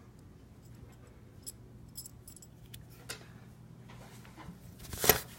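A keychain handled inside a box: scattered small clicks and light rattles, then one sharper, louder knock about five seconds in.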